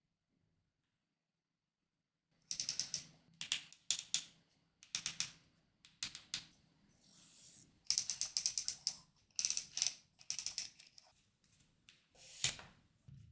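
Packaging being handled during an unboxing: irregular clusters of sharp clicks and short rustles from cardboard and plastic, starting after about two seconds of silence.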